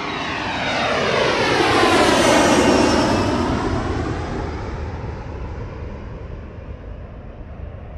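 An airplane passing overhead, growing louder to a peak about two seconds in and then slowly fading away, with a sweeping rush that dips and rises in pitch as it goes by.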